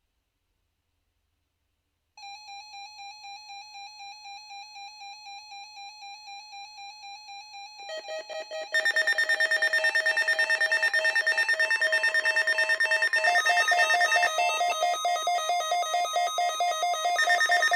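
Weather radio alert alarms going off for the weekly test. A pulsing beep starts about two seconds in, and from about eight seconds other beeping alarms at different pitches join in, much louder.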